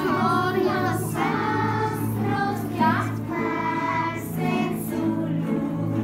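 A group of children singing a song together while strumming acoustic guitars.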